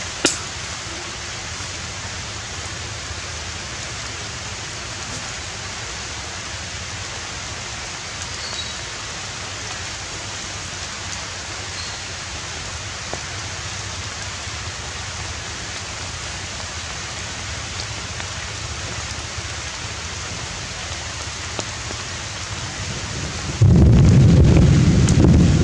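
Steady, even outdoor hiss like light rain in forest foliage. About 23 seconds in, a sudden much louder low rumble sets in and carries on.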